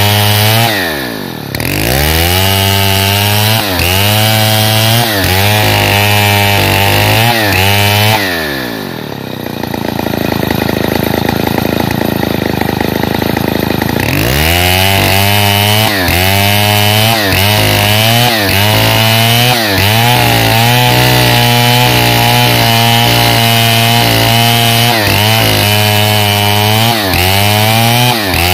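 Stihl 070 two-stroke chainsaw ripping lengthwise through a pine log. Under the load of the cut its engine pitch repeatedly dips and recovers, about once a second. The throttle is let off briefly about a second in, and again from about eight seconds in, when the saw runs slow for several seconds before revving back up into the cut.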